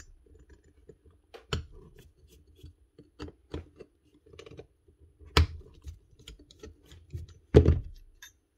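Irregular clicks and light knocks of a cow clipper's cutting head and blades being handled on the bench, with two louder knocks about five and seven and a half seconds in.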